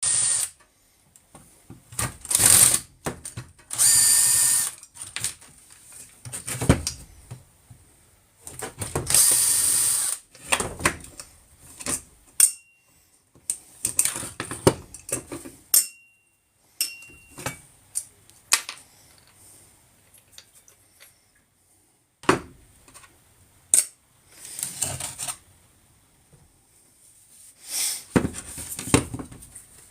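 A handheld power tool run in short bursts of up to about a second, again and again, between clicks and clatter of parts being handled.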